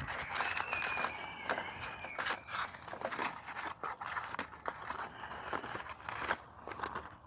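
Heavy-duty aluminium foil packet crinkling and crackling as it is handled, in irregular bursts of small crisp clicks.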